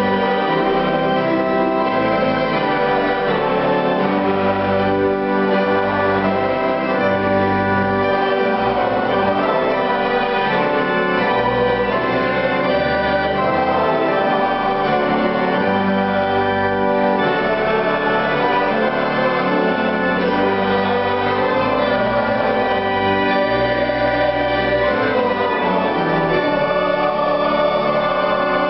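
Violin and keyboard duet playing a slow piece, the keyboard holding sustained chords over long, slowly changing bass notes.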